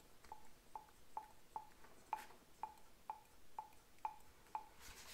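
Valves of a Honda CL125 cylinder head sliding in their guides and tapping shut on their seats: a faint, even series of light metallic ticks, about two a second, each with a short ring. The valves, freshly lapped and lubed, are sliding freely in the guides.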